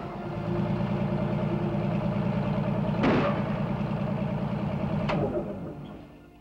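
Crawler bulldozer engine running steadily with a fast, even beat, then dying away near the end. Two brief sharp noises come over it, one about three seconds in and a shorter one about five seconds in.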